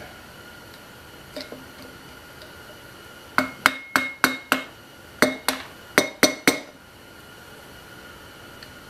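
Hammer tapping on the steel lock tabs at the rear sprocket bolts of a 1973 Honda CL350, flattening the tabs. There are ten sharp, ringing metal taps in two quick runs of five, with a short pause between them.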